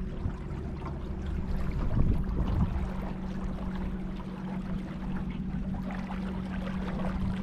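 Small boat under way: a steady motor hum, a little stronger in the second half, over water washing along the hull.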